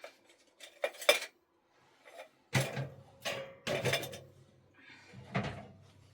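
Hard objects being handled: a run of several sharp clinks and knocks, like pots, dishes or utensils being set down and moved.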